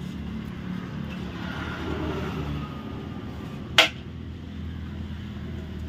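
Road traffic: a steady low engine rumble, with a faint tone sliding down in pitch a couple of seconds in. One sharp click a little under four seconds in is the loudest sound.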